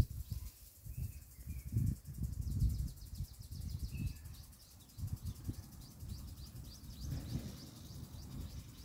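Outdoor ambience: irregular low buffeting on the microphone, a few faint bird chirps, and a steady high insect trill, with a single sharp click right at the start.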